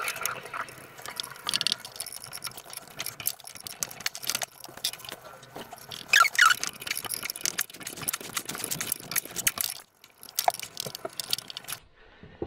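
Hand tools working the end of a steel brake line: a steady run of small metal clicks, taps and scrapes, with a short squeak about six seconds in as the flaring tool is turned. The clicking thins out near the end.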